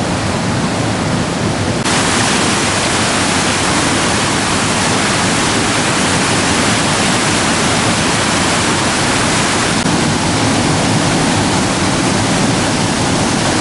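Steady rush of fast-flowing river water, turning louder and brighter about two seconds in.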